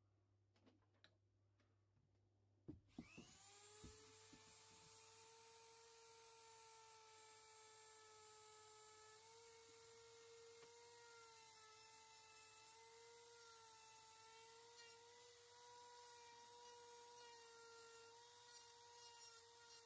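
Dremel 3000 rotary tool on a flex shaft, switched on about three seconds in after a few knocks, then running with a steady high whine while a small burr works the wood of the carving. Its pitch dips and recovers a little as the load changes.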